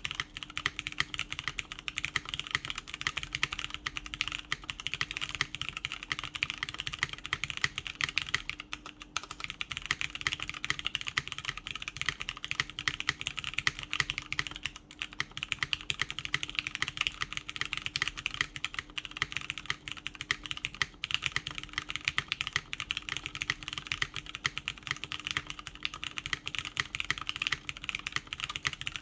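Continuous fast typing on a mechanical keyboard with lubed Cherry MX Brown tactile switches, an aluminium plate and Cherry keycaps, a steady stream of keystrokes with brief pauses about nine and fifteen seconds in.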